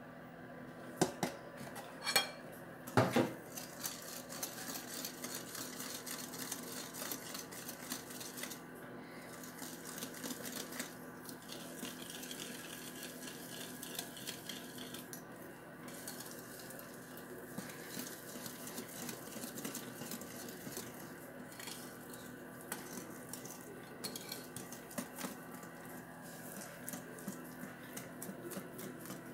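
Metal wire whisk beating flour into cake batter in a glass bowl: a steady run of light scrapes and clinks of the wires against the glass. A few sharper knocks come in the first three seconds.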